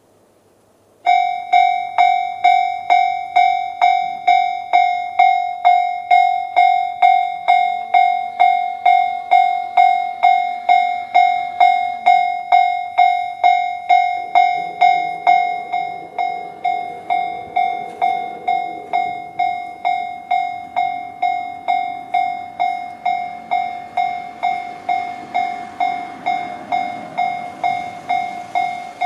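Japanese level-crossing alarm in the JR standard tone starts about a second in: an electronic bell ringing about twice a second. From about halfway on, the low rumble of an approaching train, a 521 series electric multiple unit, builds beneath it and grows louder near the end.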